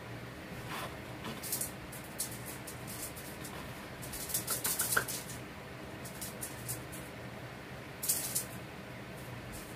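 Small cat toy being shaken and batted for a kitten, giving short bursts of rattling, busiest around the middle and again near the end.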